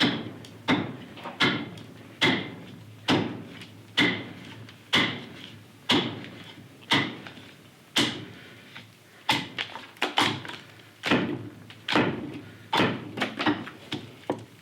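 Carving axe chopping into a green sycamore blank, sharp strokes of steel biting wet wood at about one a second, coming a little quicker near the end.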